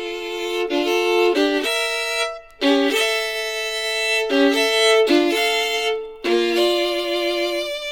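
Violin music played from a vinyl record, heard as recorded directly from a phono preamp's output: held bowed notes in phrases, with two brief breaks between them.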